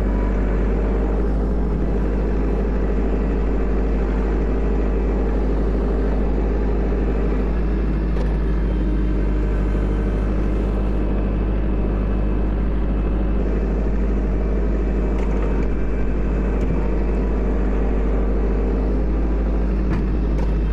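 Kubota L4701 tractor's diesel engine running steadily under load while its front snow pusher shoves snow into a row.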